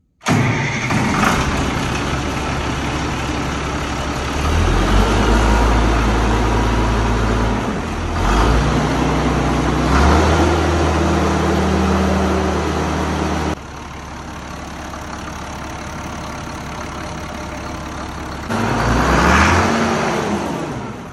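Freshly rebuilt Allis-Chalmers Two-Ten tractor's six-cylinder diesel engine running loud on a cold start. It comes in abruptly, is raised to higher revs a few seconds in, drops back to a lower idle about two-thirds through, and gets one quick rev up and down near the end.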